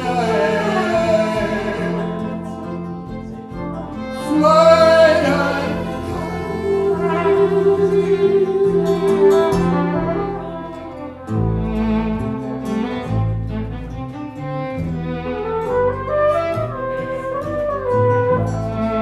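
Live acoustic band playing an instrumental passage: acoustic guitar, bowed violin and flugelhorn over double bass. The double bass's low notes come through stronger from about eleven seconds in.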